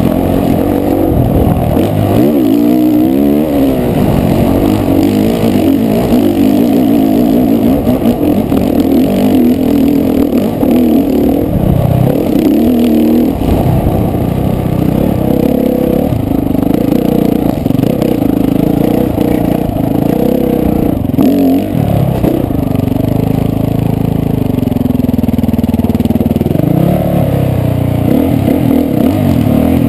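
A dirt bike engine revving up and down as it is ridden, its pitch rising and falling continuously, heard from a helmet-mounted camera.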